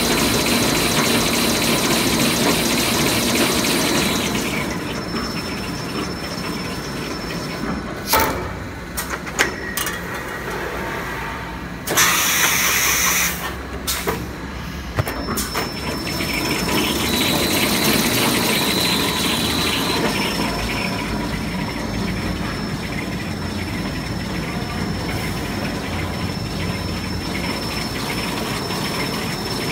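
Toilet paper rewinding machine running with a steady mechanical whir and a high whine that comes and goes. A few sharp clicks sound about eight to ten seconds in, and a loud hiss lasts about a second and a half around twelve seconds in.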